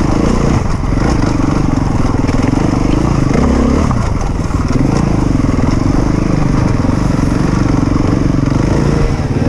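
Enduro dirt bike engine running under changing throttle, its pitch wavering up and down, with a short dip about three and a half seconds in.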